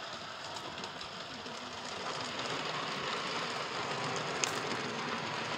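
Gauge 1 model train running along garden track: a steady rolling noise of wheels on rails, growing a little louder as it comes closer, with one sharp click about four and a half seconds in.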